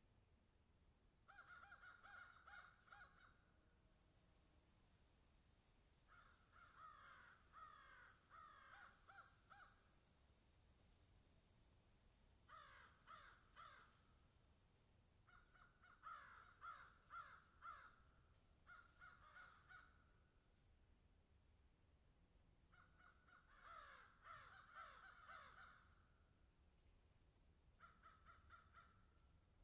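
Crows cawing faintly in short bouts of several calls, one bout every few seconds.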